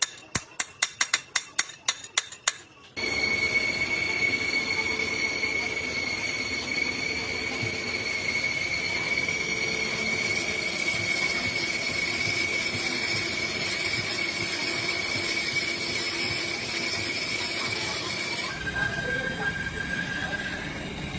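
Rapid light metallic tapping, about five taps a second. About three seconds in, a workshop machine starts abruptly and runs with a steady high-pitched squeal over a noisy hiss. Near the end the squeal drops to a lower, fainter tone.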